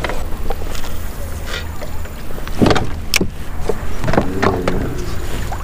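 Fishing gear handled aboard a plastic kayak: several knocks and clicks as the rod and tackle are moved about against the hull, over a steady low rumble.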